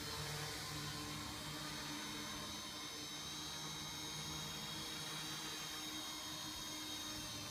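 Quadcopter's electric motors and propellers whirring steadily as it hovers and flies low, a continuous hum with a slight waver in pitch.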